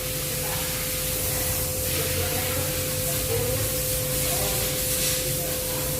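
Steady hissing noise with a constant faint tone and a low hum, unchanging throughout.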